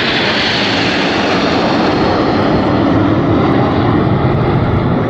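Red Arrows BAE Hawk jets flying past, a loud rushing jet noise that sinks in pitch from a high hiss to a deep rumble as they go by.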